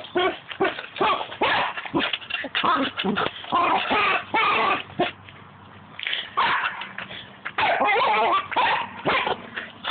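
A corgi yipping and barking in quick, excited bursts, with a short pause about halfway through.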